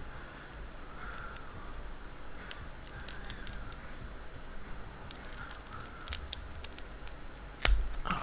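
Small sharp clicks, scratches and tearing as the home button is pried and peeled off its adhesive on a Samsung Galaxy S5's old screen assembly, with a louder knock near the end.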